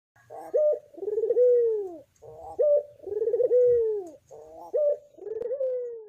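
Dove cooing: three phrases about two seconds apart, each a short steady note followed by a longer coo that falls in pitch.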